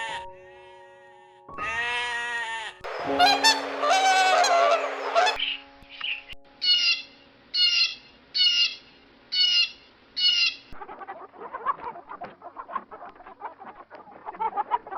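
Farm birds calling over soft background music. A pitched bleat-like call comes about two seconds in, then a loud harsh honking call. Next come six short, evenly spaced quacks, then a rapid run of quiet chattering.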